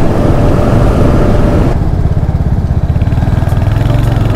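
Royal Enfield Hunter 350's single-cylinder engine running on the move, a steady low exhaust thump; the rushing hiss over it drops away suddenly a little under two seconds in.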